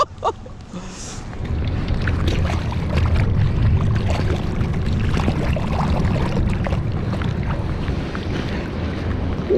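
Water sloshing and splashing as a freshly landed steelhead trout is rinsed by hand in shallow river water, over a steady low rumble of wind on the microphone.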